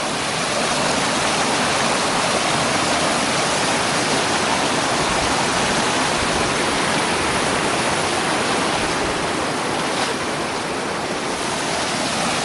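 Waterfall: a steady rush of falling, splashing water.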